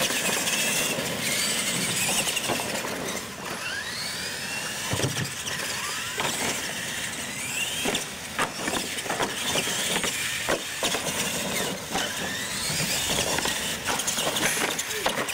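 Radio-controlled monster trucks racing on a concrete track. Their motors whine and rise in pitch several times as they accelerate, with short knocks as they run over the wooden ramps.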